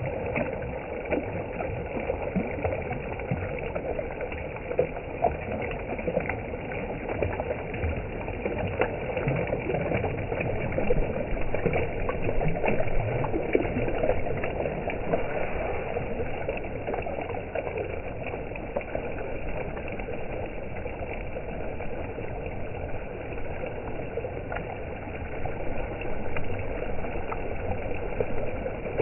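Shallow river water rushing and rippling over stones close to the microphone: a steady, fairly loud wash of water noise.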